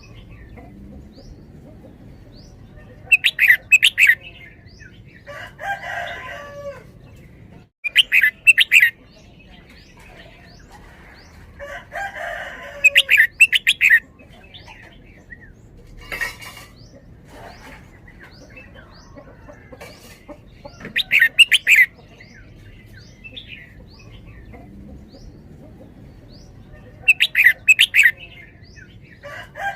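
Caged red-whiskered bulbul singing loud, short song phrases in the repeated 'double' (เบิ้ลเบิ้ล) style, five phrases a few seconds apart. Softer, lower calls come in between the phrases, with faint small chirps underneath.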